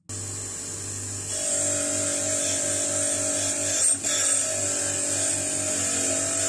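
Bench grinder with a wire wheel running with a steady motor hum, while an old Bahco 31 adjustable wrench is held against the wheel to brush off rust. The high hiss of the wire brushing comes in about a second in and breaks off briefly near the four-second mark.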